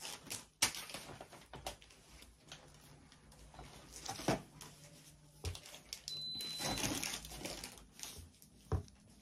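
Close handling noise of cloth and cord being worked by hand: rustling and rubbing with scattered small clicks as a thread is pulled through and knotted tight.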